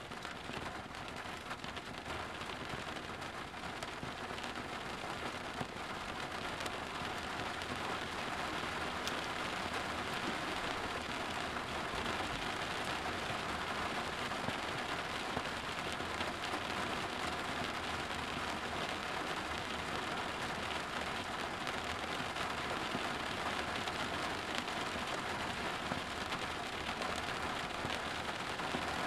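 Steady rain falling, an even hiss that grows a little louder over the first few seconds and then holds.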